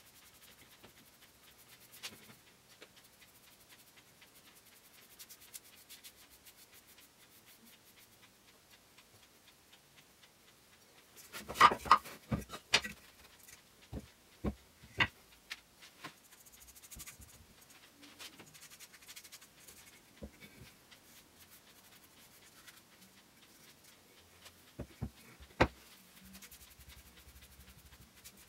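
Faint rubbing of a brush laying varnish onto a pine frame, broken by a quick cluster of sharp wooden knocks about twelve seconds in, a few single knocks just after, and two or three more near the end as the frame pieces are handled and set down on the bench.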